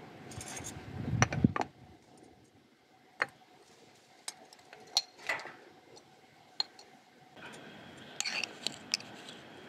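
Kitchenware clinking: two sharp knocks on a metal cooking pot about a second in, then scattered light clicks of a small spoon against ceramic spice jars.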